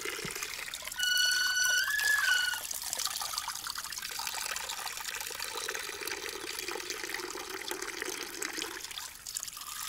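Water trickling steadily in a small stream. About a second in, a high whistled note sounds for about a second and a half, stepping up slightly in pitch partway through.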